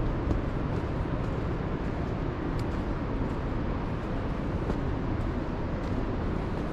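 Footsteps on a dirt trail, about two a second, over a steady low rumble.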